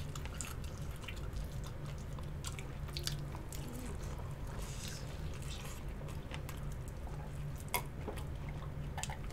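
Close-miked chewing and biting of chicken wings: scattered small crunchy and wet mouth clicks over a steady low hum.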